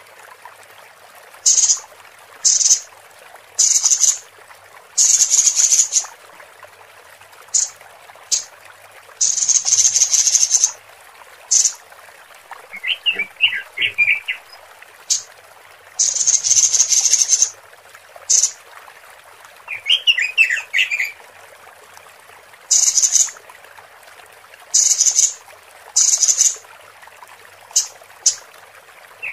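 Female robin (red-billed leiothrix, the 'Pekin robin') lure call: a series of loud, high, harsh hissing notes, some brief and some held over a second, broken twice by a quick run of lower twittering notes. A faint steady hiss sits underneath.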